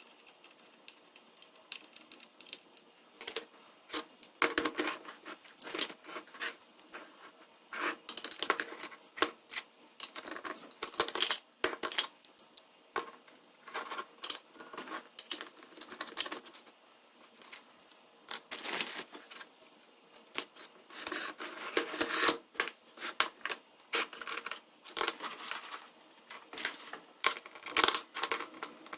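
Irregular clicks, taps and scrapes of small hard parts being handled and fitted, coming in clusters with short pauses.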